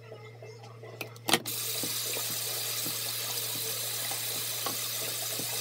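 Water running steadily from a tap, starting with a click about a second in.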